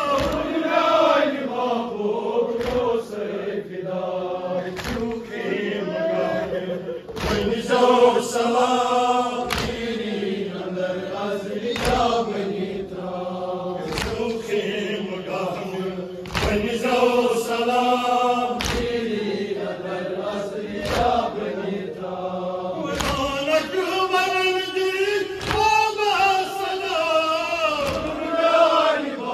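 Men chanting a nauha, a Shia lament, in unison behind a lead reciter. Sharp slaps of palms on chests (matam) land in time about every two seconds.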